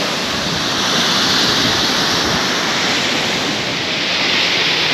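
Rushing water of a waterfall or river cascade, a steady loud hiss.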